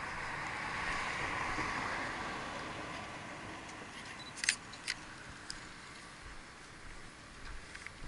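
A digital single-lens reflex camera's shutter clicks twice, about half a second apart, a little past the middle. Before that, a rushing hiss swells and fades over the first three seconds.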